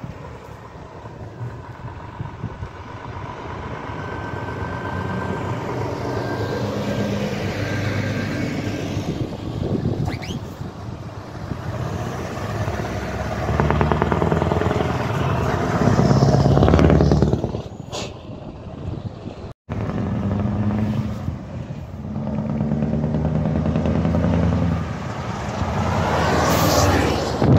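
Scania trucks driving past one after another, their diesel engines growing louder as each approaches and fading as it goes by. The loudest pass comes about two thirds of the way in, and a second truck passes near the end.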